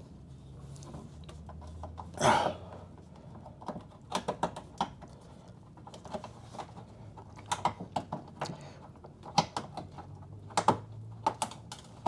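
Plastic clicks, taps and knocks as a mud flap and its push-in retaining clip are worked into place on a car's wheel arch, with a louder scrape about two seconds in.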